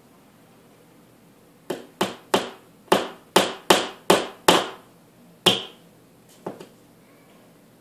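A claw hammer tapping a small nail into the wall, about ten sharp metallic strikes, the last one lighter, each with a brief ring; the nail is being driven in to check that a wall stud is behind the marked spot.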